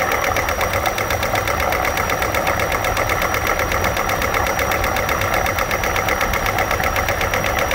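Hyundai Elantra's 16-valve DOHC four-cylinder engine idling with its valve cover off, the exposed camshafts and valvetrain clattering in a fast, even ticking rhythm.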